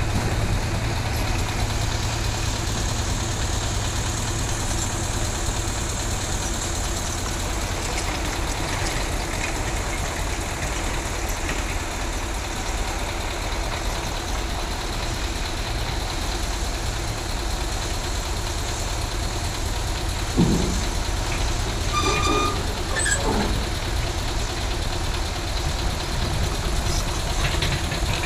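Heavy machinery's diesel engine running steadily at low revs. A single thump comes about twenty seconds in, followed a couple of seconds later by a few brief higher-pitched tones.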